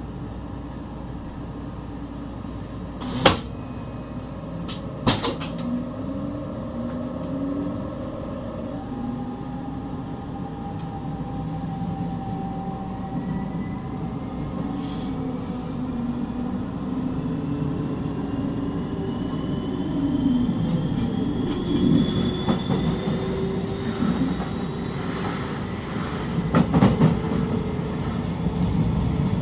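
Electric stopping train heard from the driver's cab: two sharp knocks a few seconds in, then a whine that climbs slowly in pitch over the running noise as the train picks up speed.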